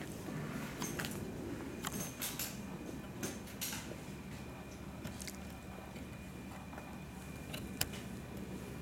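Quiet background with faint rustling and a few small, sharp clicks, the sharpest about eight seconds in: handling noises during a silent pause while the burial flag is held open.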